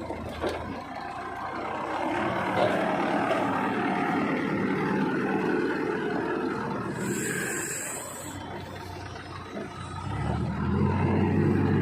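Diesel construction machinery running while loading sand, engine working steadily, with a short high hiss about seven seconds in. Near the end the engine comes under heavier load and grows louder.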